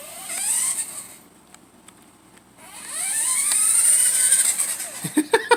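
Small electric motor of a toy remote-control car whining as it speeds up, rising in pitch twice. A quick run of clicks and knocks follows near the end.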